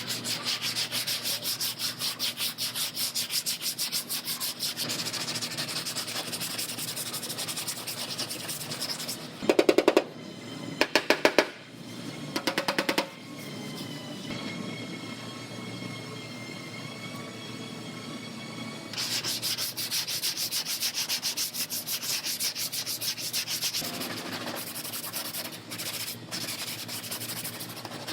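Sandpaper scraping rapidly back and forth over body filler on a car's repaired quarter panel, about five strokes a second. A few short, much louder buzzing bursts come about a third of the way in, followed by a steady high whine for several seconds.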